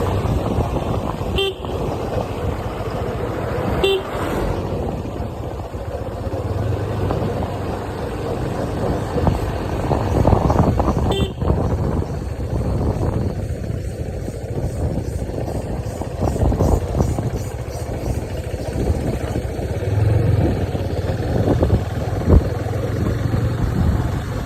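Steady vehicle and road noise, with three short horn toots in the first half.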